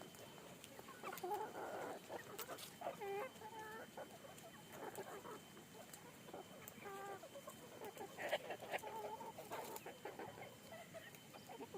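Chickens clucking, a scattering of short calls, fairly faint.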